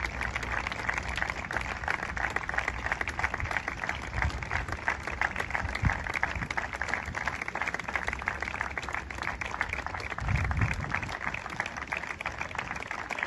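Steady applause: many hands clapping together, kept up without a break.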